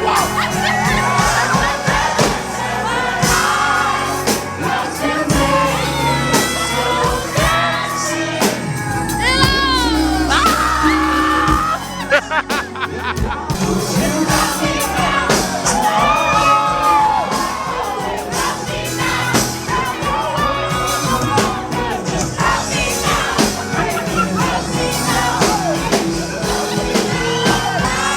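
A singer performing with a live band, the voice gliding through long melodic runs over the accompaniment, with the audience whooping along at times.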